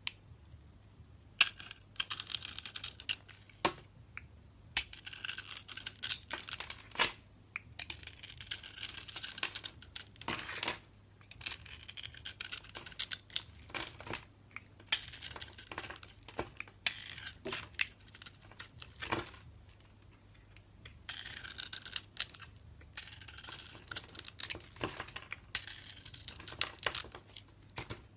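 Crisp crackling and crunching of a brittle material being cut or squeezed close to the microphone, in repeated spells of a second or two with short pauses between them.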